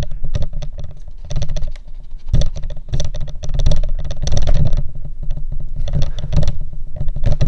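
Handling noise from a camera being held and moved to zoom in: irregular rubbing, knocks and clicks on the body over a dull low rumble.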